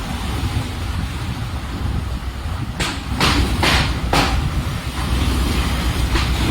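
Storm wind buffeting the microphone with a steady low rumble, and four short hissing rushes in quick succession midway, then one more near the end.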